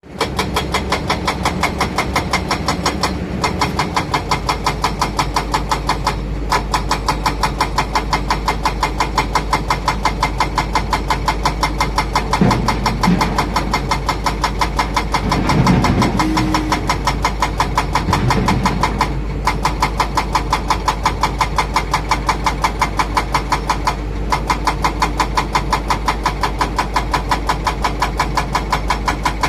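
Heavy diesel engines running as an excavator loads a dump truck, with a rapid, regular pulsing beat throughout. A few brief pitched sounds come and go in the middle.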